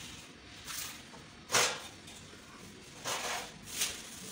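Cloth rubbing and scraping over a stainless-steel gas stove as it is wiped clean: four brief swishes, the loudest about one and a half seconds in.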